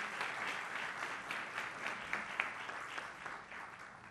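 Audience applauding, a dense patter of many hands clapping that thins and fades near the end.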